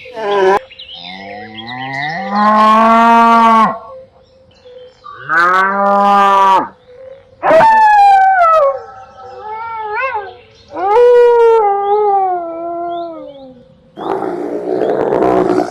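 A series of about five long, pitched animal calls, some rising and some falling in pitch, followed near the end by a rough, noisy roar.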